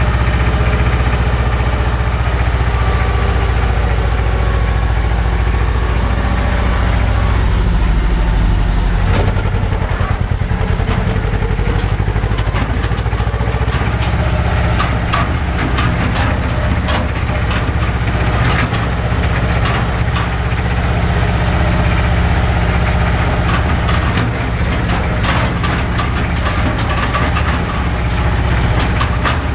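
Tractor engine running steadily while the tractor drives along a gravel field track, heard from the driver's seat, with frequent rattles and knocks from about nine seconds in.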